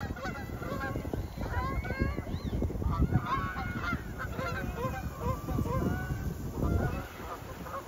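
A flock of Canada geese calling in flight, many honks overlapping, over a low rumbling noise.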